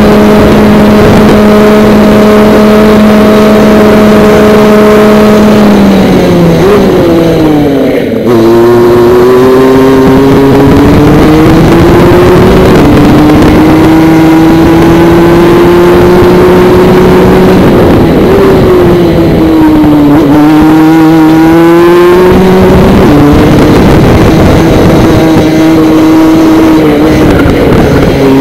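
Praga DD2 gearbox kart's Rotax 125 cc two-stroke engine at full throttle, very loud. It holds a steady pitch on the straight, then drops as the kart brakes about six seconds in, with a brief break near eight seconds. After that it rises and falls repeatedly through the corners.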